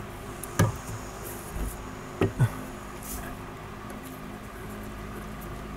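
Handling noise while PVC pipe is cemented: a sharp click about half a second in and two quick light knocks a little after two seconds, over a faint steady low hum.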